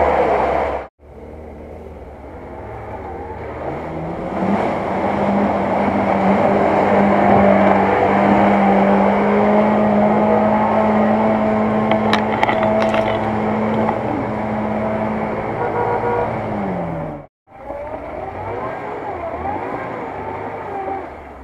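Off-road car's engine revving hard and held at high revs for about eleven seconds as its wheels spin and churn through mud, then falling away. After a cut near the end, a Lada Niva's engine runs as it crawls through deep mud.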